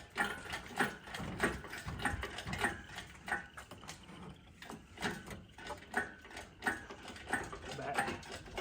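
Lifting gear being worked to raise a car engine out of its bay: irregular mechanical clicks and creaks, a few a second.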